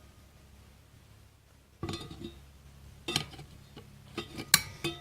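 Steel clutch plates from a 4L60E reverse input drum clinking against each other and the metal drum as they are handled. Several sharp metallic clinks, some with a short ring, begin about two seconds in.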